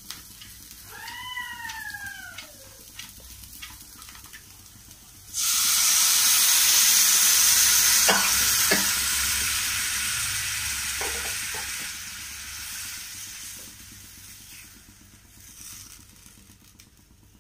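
Onions and chillies frying in oil in a nonstick kadai. About five seconds in, a sudden loud sizzle as watered-down curd is poured into the hot pan, then it slowly dies down as the curd is stirred, with a few knocks of utensils on the pan.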